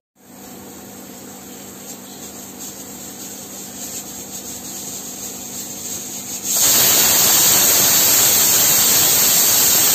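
Hawkins pressure cooker building pressure with a faint hiss over a steady low hum. About six and a half seconds in, the pressure weight lifts and a loud, steady hiss of escaping steam starts and keeps going: the cooker whistling as it reaches full pressure, one of the two whistles the rajma is cooked for.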